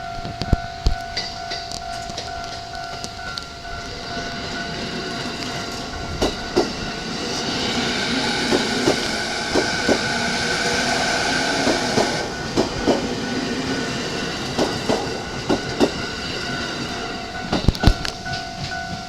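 JR East E217-series electric train passing over a level crossing. A rush of wheels and running gear builds to a peak midway and then fades, with rail-joint clacks through the pass. The crossing's warning bell rings steadily at the start and again near the end.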